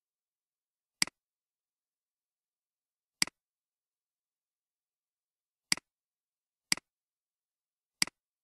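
Five computer mouse clicks, each a quick double tick of button press and release, spaced irregularly one to two and a half seconds apart.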